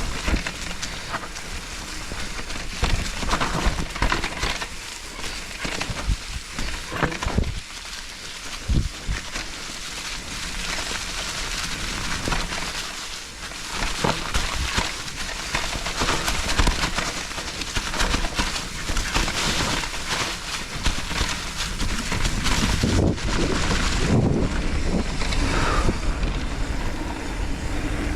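Nukeproof Giga 297 full-suspension mountain bike riding down a dirt trail: constant tyre and trail noise with frequent knocks and rattles from the bike over bumps, and wind noise on the chin-mounted microphone.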